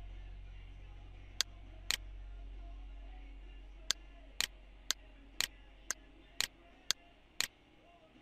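Computer mouse button clicking: two clicks about a second and a half in, then a run of clicks about two a second through the second half, over a steady low hum.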